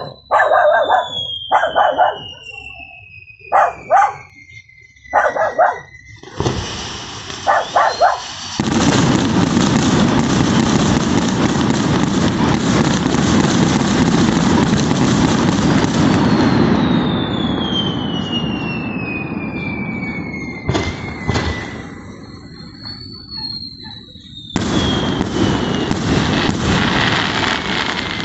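Castillo firework tower going off: short sharp bursts and bangs, long falling whistles, and a dense continuous crackling rush of burning fireworks from about six seconds in, easing off near the middle and swelling again in the last few seconds.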